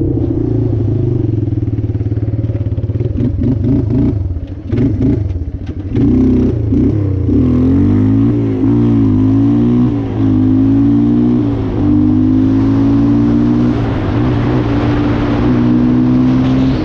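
Yamaha Timberwolf 250 ATV's single-cylinder four-stroke engine under way: the revs fall and stutter briefly, then it accelerates through the gears, the pitch climbing and dropping back about three times before holding steady at speed. Wind noise on the microphone grows toward the end.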